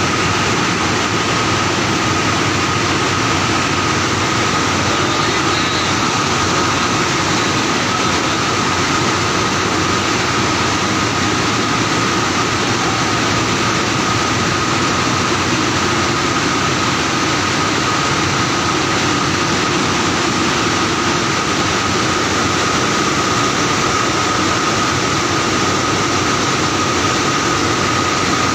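LMW LDAZ finisher draw frame in a spinning mill, running steadily: an even mechanical rush with a constant high-pitched whine that neither changes nor stops.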